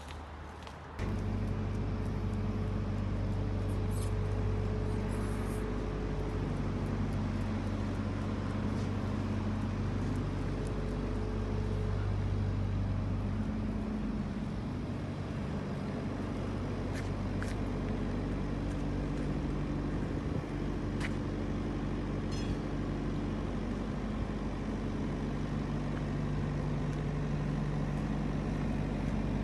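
A heavy diesel engine idling steadily, coming in abruptly about a second in: a low, even hum with a few steady tones.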